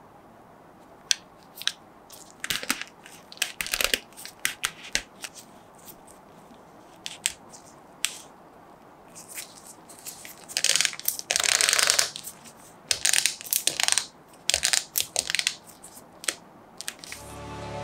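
A gloved hand handling a soft vinyl Mechagodzilla figure, turning its head and working the jaw: a run of short rubbing, creaking and clicking sounds, with a longer stretch of rubbing about eleven to twelve seconds in.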